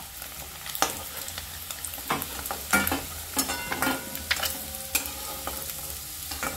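Whole potatoes sizzling as they fry in hot oil in a kadai, with a steel spatula scraping and knocking against the metal pan as they are turned, a sharp click or scrape about every second.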